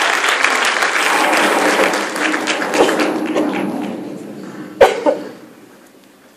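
Audience clapping, thinning and dying away over the first few seconds. About five seconds in comes one sudden loud sound close to the microphone, the loudest moment, before the hall falls quiet.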